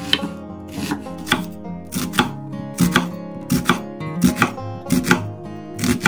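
Chef's knife chopping an onion on a wooden cutting board: a sharp knock on the board with each stroke, the strokes often coming in quick pairs, a pair roughly every three quarters of a second. Plucked-guitar background music plays underneath.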